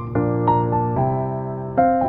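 Background music: a soft electric piano playing gentle chords over a held bass note, with new notes struck every half second or so.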